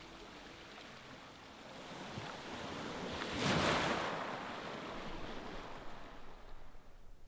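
Outdoor ambience: a rushing noise that swells to a peak about three and a half seconds in, then fades.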